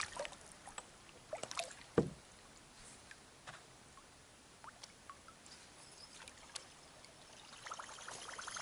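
Plastic kayak knocked and tapped by gear being handled aboard: scattered light clicks, with a sharper knock about two seconds in. Light water sounds build near the end.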